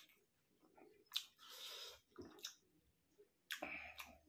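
Quiet close-miked eating sounds: a sharp click a little after a second in, then short bouts of chewing and mouth noise, the loudest near the end.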